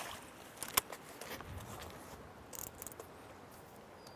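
Faint outdoor background with a few scattered small clicks and ticks, the sharpest a little under a second in and a short cluster about two and a half seconds in.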